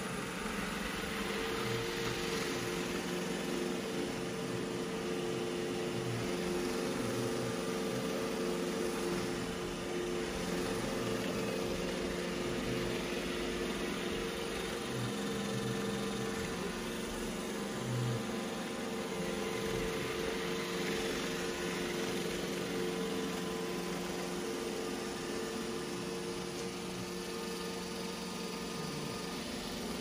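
iRobot Roomba J7+ robot vacuum running: a steady whir of its motor with a constant hum, a little quieter near the end.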